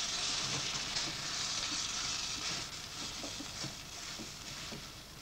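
Spiced onion, ginger and garlic paste sizzling in clarified butter in a pan, with water just added, while it is stirred with a wooden spoon. The sizzle is strongest at first and dies down over the last couple of seconds.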